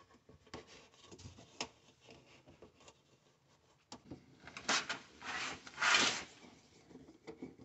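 Handling of under-sink plastic drain fittings: a few faint light clicks, then three short rasping scrapes in the second half as a screwdriver tightens a hose clamp on the drain's rubber coupling.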